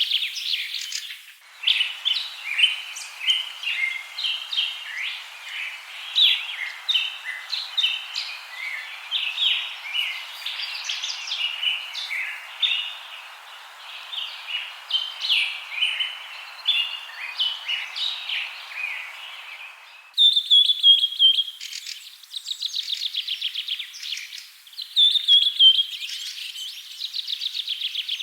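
Songbirds chirping and calling, many short overlapping notes over a steady hiss; about twenty seconds in it changes abruptly to a different bird repeating a rapid high trill.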